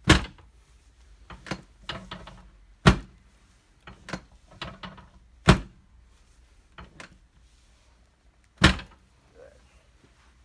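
Chiropractic table's drop piece dropping under adjustment thrusts: four loud thunks, about one every three seconds, with softer clicks between them.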